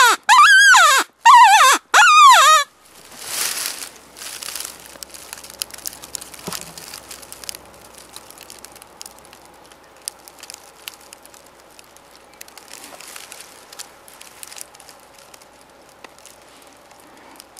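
Predator call giving a series of loud, wavering cries that slide down and back up in pitch for the first two and a half seconds, then stopping; after that only faint rustling and crinkling with a few small clicks.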